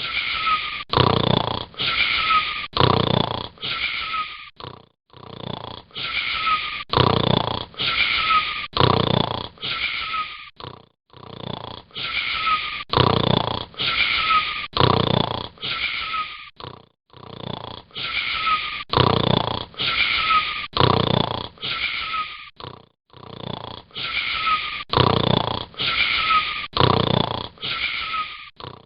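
Wheezy snoring: short snore breaths in quick, even succession, each carrying a thin whistling note. The same run of breaths repeats in a regular pattern about every six seconds.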